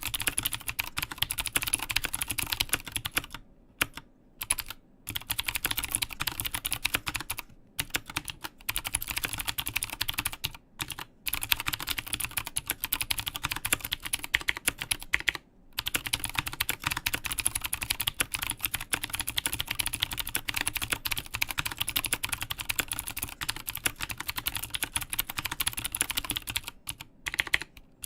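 Fast, continuous typing on a Mstone Groove T aluminium-case mechanical keyboard with Cherry MX Blue clicky switches: a dense stream of key clicks, broken by a few brief pauses.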